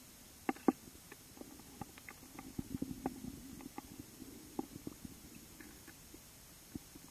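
Muffled underwater sound picked up by a submerged camera: irregular soft clicks and knocks over a low rumble, the loudest two clicks about half a second in.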